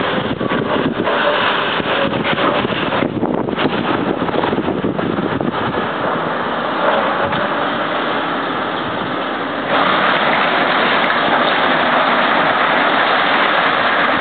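Heavy demolition machinery, a wheel loader and an excavator, working through a pile of wrecked building debris: a steady, dense din that gets louder and evener about ten seconds in.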